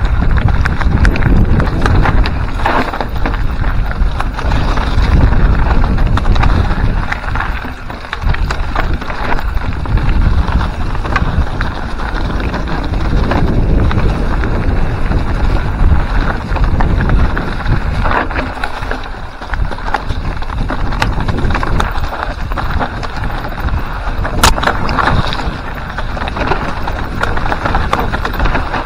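Loud wind buffeting on the microphone of a camera riding a mountain bike down a rocky singletrack, with tyres crunching over loose stones and scattered clicks and knocks from the bike rattling over the bumps, one sharp knock near the end.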